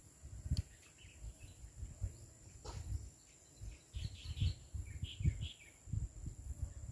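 Bird chirps from about four seconds in, over a steady high insect buzz, with repeated low thumps on the microphone.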